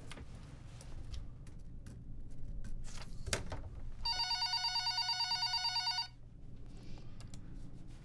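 Corded desk telephone ringing: one trilling ring about two seconds long, starting about halfway through.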